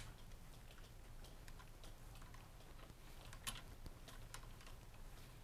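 Mostly near silence, with a few faint clicks and taps, the clearest about three and a half seconds in, from a cleaning rod being worked back and forth through a rifle barrel with an oiled patch.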